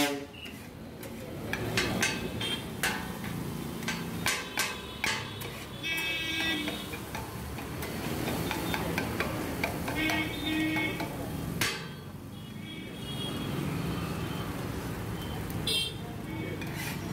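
Two flat metal kothu blades clanging against an iron griddle in quick bursts of strikes, chopping and mixing parotta into kothu parotta.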